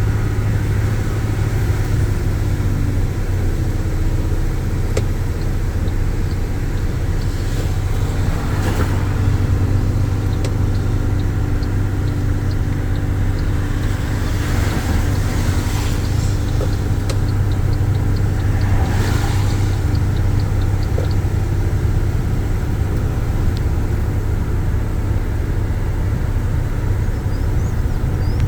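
Steady car drone with a constant low hum from the engine and road, and a few swelling rushes of noise, about 8, 15 and 19 seconds in.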